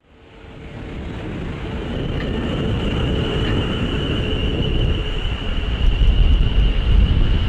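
Pair of Class 450 Siemens Desiro electric multiple units arriving, their wheels rumbling on the rails with a steady high whine over it. The sound fades in at the start and grows louder as the train comes nearer.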